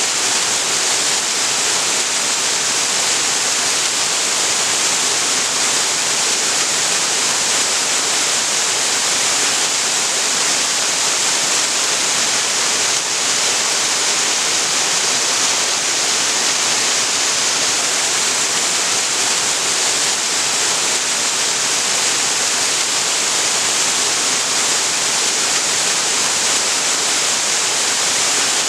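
Waterfall pouring into a creek: a steady, even rush of falling water, strongest in the hiss with little low rumble.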